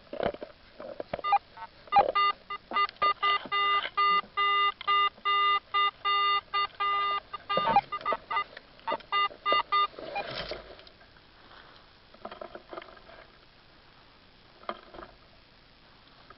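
Garrett pinpointer probe beeping in quick, repeated buzzy pulses, about two to three a second, as it is worked over dug soil to locate a metal target. The beeping stops about ten seconds in, leaving faint scraping in the dirt, with a few sharp clicks during the beeps.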